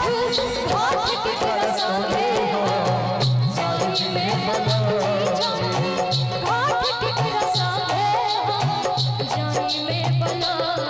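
Instrumental interlude of a Bhojpuri Chhath folk song: a melodic lead with sliding notes over a steady percussion beat and bass.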